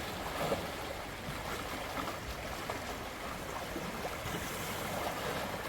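Shallow river water flowing steadily, an even rushing sound with a few faint small splashes.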